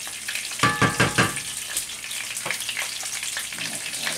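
Sausages frying in a pan with a steady sizzle. About a second in there are a few quick knocks with a short ring: the wooden spoon stirring the sauce striking the metal pot.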